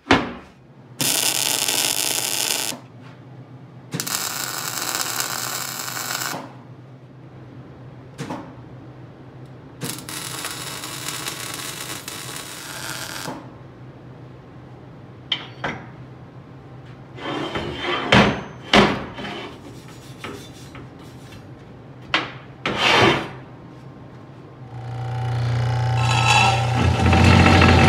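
Metal shop work: three loud hissing bursts of a few seconds each from MIG welding on a steel tube frame, then a scatter of sharp metal clanks. Near the end a Dake cold saw's motor starts up and runs with a steady hum.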